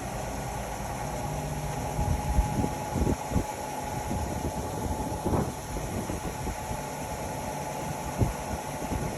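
Indesit Innex XWA 81252 front-loading washing machine running, its motor humming steadily with a faint whine, while the drum turns and gives several dull thumps.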